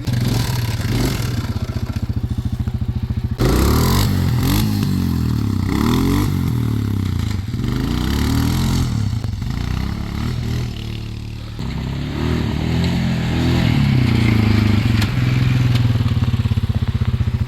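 Suzuki Vinson 500 ATV's single-cylinder four-stroke engine idling, then, from about three seconds in, revving up and down again and again.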